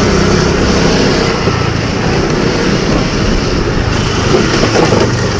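Motorcycle engine running steadily at low speed, a continuous even hum.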